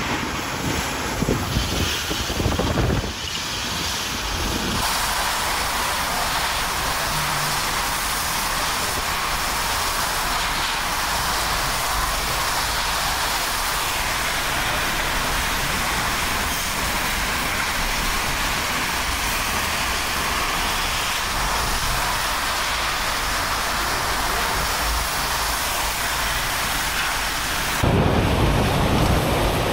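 Hurricane-force wind and rain. Gusts buffet the microphone with an uneven low rumble for the first few seconds. This gives way to a steady hiss of wind-driven rain, and the rumbling buffeting returns near the end.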